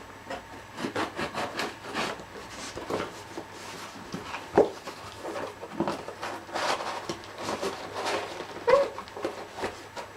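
A sharp knife cutting open a cardboard box: irregular scraping, rustling and small knocks as the blade and hands work the cardboard, with a sharper knock about halfway through.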